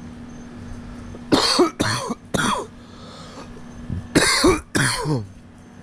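A person coughing: five loud coughs in two bouts, three in quick succession and then two more about two seconds later.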